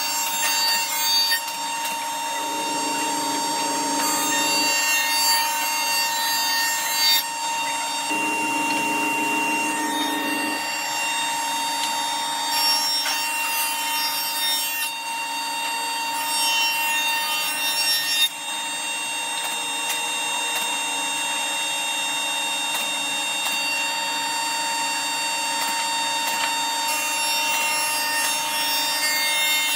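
A power tool working wood: a steady whine over a noisy cutting or abrading sound, its texture shifting every few seconds.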